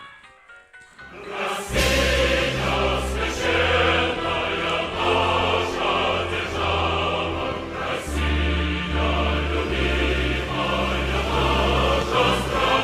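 Piano or synth music from a world map drawn as notes: a few sparse high notes, then about a second and a half in a loud, dense mass of sustained notes sounds together. The chords shift in blocks every half second to a second, over a heavy bass, with a choir-like sound.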